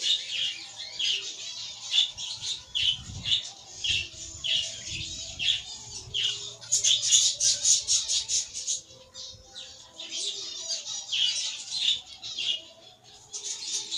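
Budgerigars chirping and squawking in rapid, harsh calls, several a second, with louder flurries about halfway through and near the end.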